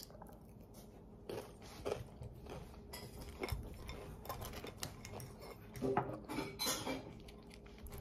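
Scattered light clinks and scrapes of eating from a ceramic bowl, a handful of short knocks spread over several seconds.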